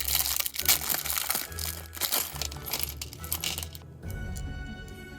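Small plastic LEGO pieces clicking and clattering with a plastic bag crinkling, over background music; the handling stops about four seconds in, leaving only the music.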